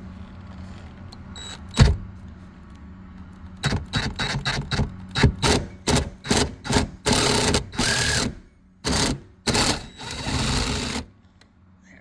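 Hand ratchet wrench clicking in quick bursts while a T50 Torx bit backs out the bolt of a broken rear seat belt tower, with a sharp metal knock about two seconds in. Later come longer runs of continuous clicking as the ratchet is swung back and forth faster.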